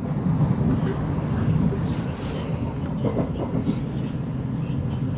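Steady low rumble of a Class 707 electric multiple unit running along the track, heard from inside the carriage.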